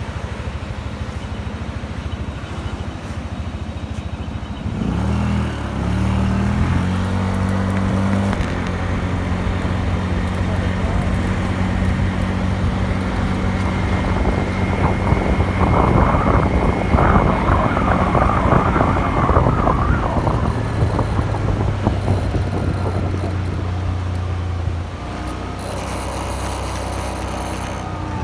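2018 Suzuki Address 125 scooter's single-cylinder four-stroke engine with its stock exhaust, starting up about five seconds in and then running steadily. It gets louder in the middle and changes in tone near the end.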